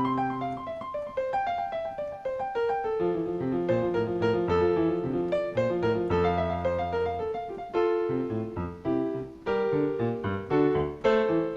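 Piano playing a flowing instrumental piece in many quick notes and chords over a moving bass line.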